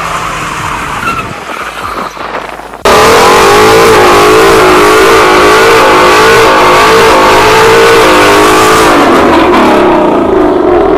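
Burnouts: a car engine revs with spinning tyres, then about three seconds in a sudden jump to a much louder Ford Mustang GT's 5.0 V8 held at high revs, the revs wavering, over the hiss and squeal of spinning rear tyres. The revs drop near the end.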